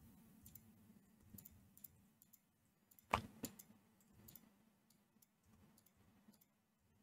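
Faint clicks of a computer keyboard and mouse as shortcut keys are pressed, with one louder click about three seconds in, over a faint low steady hum.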